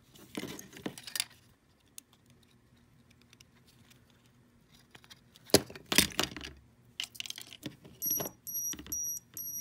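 Small plastic connector and wires being handled and pushed home, with light clicks and rustle, loudest about halfway through. Near the end a row of short, evenly spaced high electronic beeps comes from the Vortex 180 quad as it powers up.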